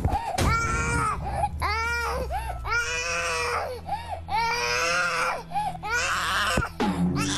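A two-year-old boy crying hard in a string of loud wails, each about a second long, with short sobbing breaths between them: a tantrum on being woken from deep sleep.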